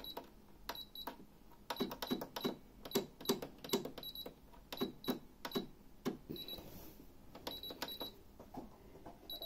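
A computerized sewing machine's control buttons pressed over and over at an uneven pace while a stitch pattern is chosen: each press is a click, most with a short high beep, mixed with some duller plastic knocks.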